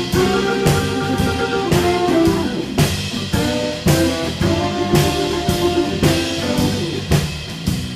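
Live rhythm-and-blues band playing a blues number, with sustained Hammond organ chords over drum kit and guitar, the drums keeping a steady beat of about two hits a second.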